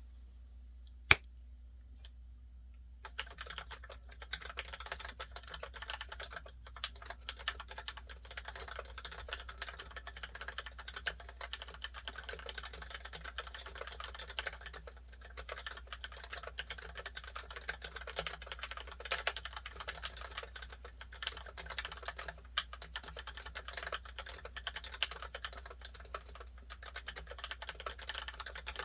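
A single sharp click about a second in, then steady, fast typing from about three seconds in on a Keychron C1 mechanical keyboard with lubricated Gateron Milky Yellow linear switches, foam under the PCB and PBT double-shot keycaps. The keystrokes keep a little hollowness, which the owner puts down to the plastic case.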